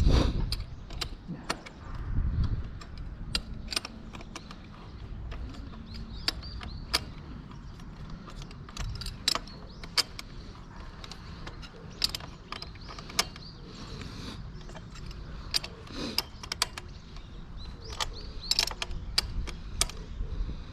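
Metal hand tools clicking and clinking as a 14mm wrench is worked on a motorcycle nut, with many irregular sharp clicks and a louder spell of handling near the start.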